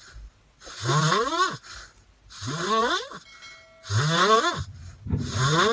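Rhythmic snoring: about four loud, rasping snores, one roughly every one and a half seconds, each with a pitched tone that rises through it.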